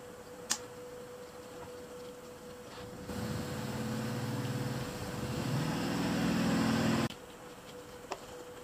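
A steady machine drone, like a running motor, starts about three seconds in, grows louder, and cuts off suddenly about seven seconds in. Under it runs a faint constant hum, with a single click about half a second in.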